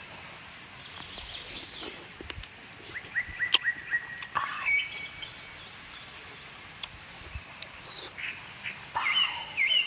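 A bird calling in runs of short, quick chirping notes, about three seconds in and again near the end, with a few sharp clicks in between.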